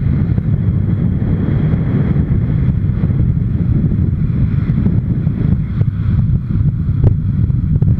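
Wind buffeting the microphone of a camera on a moving motorcycle, over the steady running of the bike's engine.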